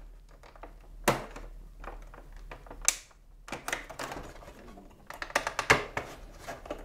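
Irregular sharp clicks and rattles of hard plastic from a vintage Kenner Millennium Falcon toy being handled around its rear landing gear, with the busiest clicking near the end.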